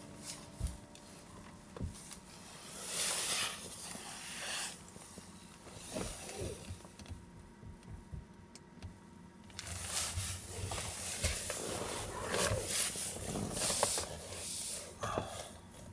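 Rustling of a down jacket and blanket in irregular swells, with a few soft knocks, as a person shifts and settles into bed.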